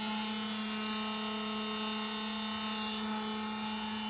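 Steady mechanical hum, like a small motor running, with one strong low tone and many fainter higher ones.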